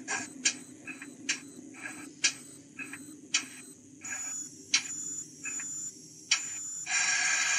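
Sound decoder of a model Castle-class steam locomotive playing through its speaker: the exhaust chuffs die down to slow, soft beats with sharp metallic ticks about once a second. From about four seconds in, short spells of hissing begin, and near the end they become a steady, louder hiss of steam from the cylinder drains.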